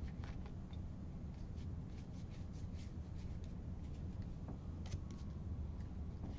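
Stack of baseball trading cards being thumbed through by hand: soft irregular ticks and slides as each card is pushed off the pile, over a steady low hum.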